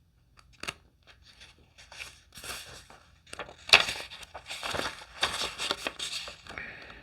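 Close handling noise: a run of rustling and crinkling, sparse at first, then louder and busier from about two seconds in, with one sharper crackle near the middle.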